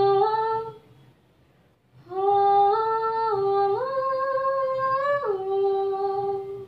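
A young girl singing unaccompanied with no backing track. She holds a note that fades out just under a second in. After a short pause she sings a long wordless, hummed phrase that steps up in pitch, holds, then drops back down.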